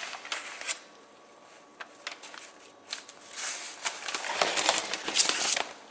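Large folded sheets of paper being handled and unfolded: a few light clicks at first, then rustling and crinkling that starts about three seconds in.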